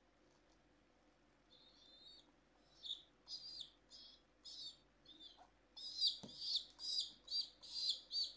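Baby pigeon (squab) begging, a run of short, high squeaky peeps. They start faint and sparse, then grow louder and come about two or three a second from about three seconds in.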